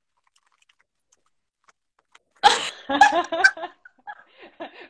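Near-silent pause, then a woman bursts out laughing about two and a half seconds in, loud for a second or so before trailing off.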